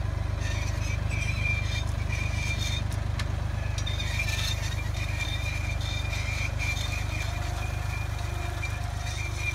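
New Holland tractor engine running steadily at a low, even pulse while it pulls a multi-row seeder through the soil, with light rattling on top.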